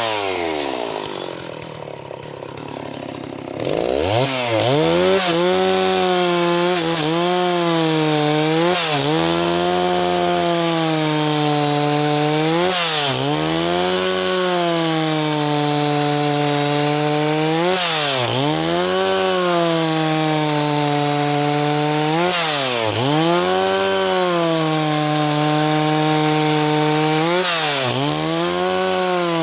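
Stihl 038 two-stroke chainsaw running at high revs. Near the start it drops back toward idle, then is throttled up again about four seconds in. It then stays at full throttle with its pitch sagging and recovering again and again, typical of the chain being loaded in a cut through wood.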